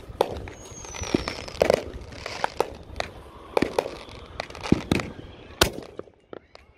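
Consumer fireworks going off all around: an irregular, rapid string of bangs and pops, near and far, with a falling whistle about half a second in and a sharp loud bang near the end.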